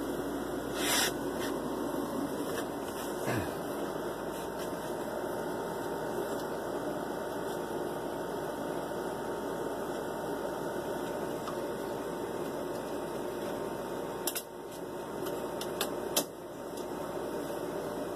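Steady mechanical noise throughout, with a short rush about a second in and two sharp clicks near the end.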